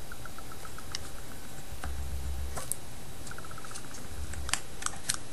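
Small plastic phone parts being pried apart by hand: several sharp clicks, with two short runs of rapid light ticks, one at the start and one about three seconds in.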